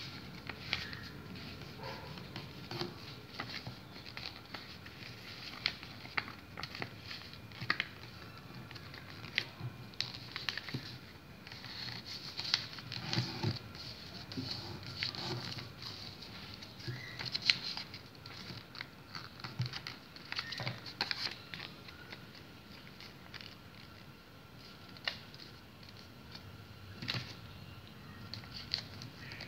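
A sheet of paper being folded by hand into a paper airplane: irregular rustling and crinkling, with short sharp taps as folds are pressed and creased against a tabletop.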